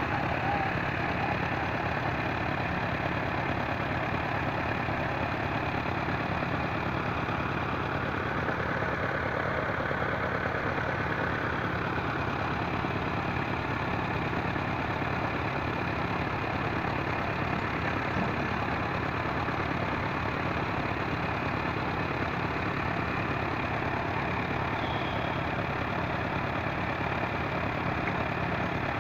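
Small core drilling rig running steadily as it drills with a wing bit, its engine and drive giving an even, unchanging mechanical noise.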